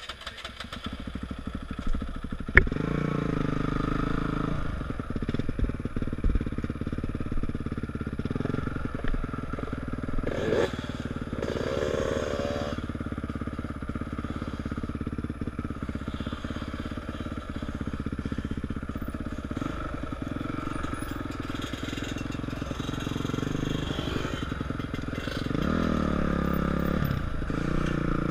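Dirt bike engine running on a trail ride, heard from the rider's helmet, revving up a couple of seconds in and again near the end, with shorter rises and falls in pitch in between.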